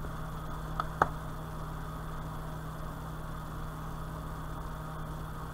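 A steady low hum with a faint hiss, and two small clicks close together about a second in.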